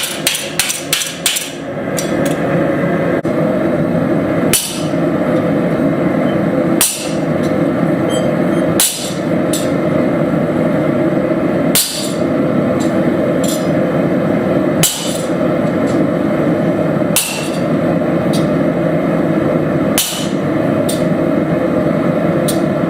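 Blacksmith's hammer striking steel at the anvil: a quick run of blows in the first second or so, then single sharp strikes every two to three seconds. Under it runs a steady rushing noise.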